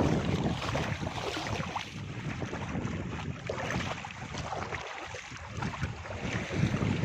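Wind buffeting the microphone over breaking sea water, gusting louder near the start and again near the end.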